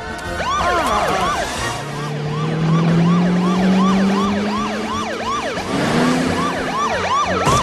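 Police car siren switched on, a fast rising-and-falling yelp repeating about three times a second. A low drone runs beneath it, rising slowly in pitch.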